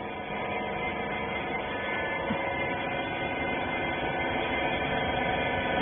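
Rag compression baler's hydraulic power unit running with a steady hum and whine made of several constant tones.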